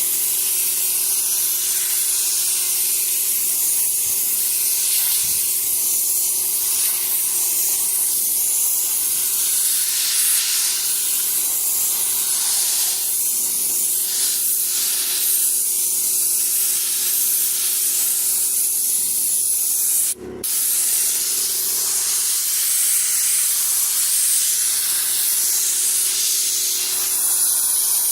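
Paint spray gun hissing steadily as it sprays, with a short break about two-thirds of the way through where the spray stops for a moment and then resumes.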